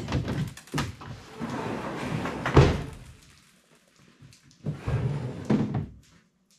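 A plastic kayak being handled and lifted onto a trailer rack of metal conduit: hollow knocks and a scraping rub, with the loudest thud about two and a half seconds in and another cluster of knocks near five seconds.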